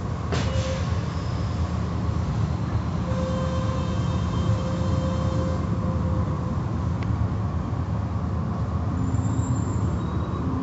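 Automatic tunnel car wash heard from inside the car's cabin: a steady rumble of water spray and cloth brushes working over the car.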